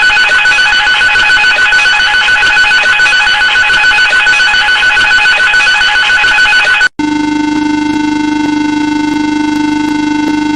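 Aircraft cockpit alarm sounds: a continuous, rapidly ringing alarm bell for about seven seconds, then an abrupt switch to a steady, lower-pitched buzzing horn tone.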